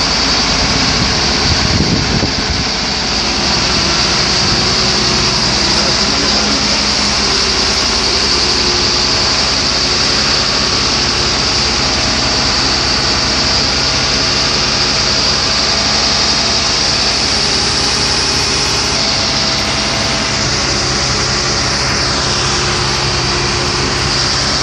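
Tadano mobile crane's diesel engine running steadily while it hoists a precast concrete block, with a constant high hiss over the engine note.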